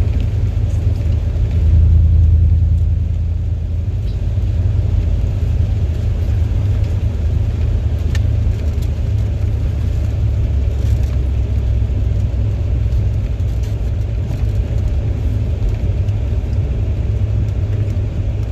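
Steady low road and engine rumble inside a moving car's cabin, swelling a little louder a couple of seconds in, with a few faint small clicks.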